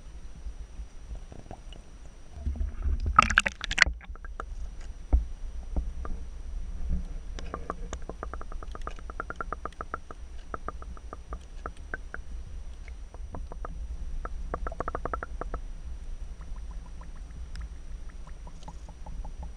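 Muffled underwater sound from a submerged camera's microphone: a steady deep rumble of water moving around the housing, a loud splashing burst about three seconds in, and later several runs of rapid fine clicking.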